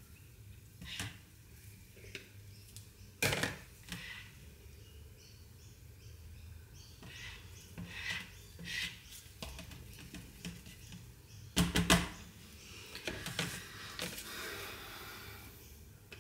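Plastic measuring jugs and a silicone spatula handled on a stainless steel bench while soap batter is poured and stirred: scattered light knocks and taps, with a louder cluster of knocks about twelve seconds in and a brief scraping hiss shortly after.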